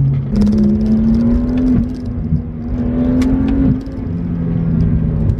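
BMW 135i's turbocharged N55 inline-six, with downpipe and axle-back exhaust, accelerating hard, heard from inside the cabin. The engine note climbs under throttle. The dual-clutch gearbox makes two quick upshifts, the pitch dropping sharply about two seconds in and again near four seconds.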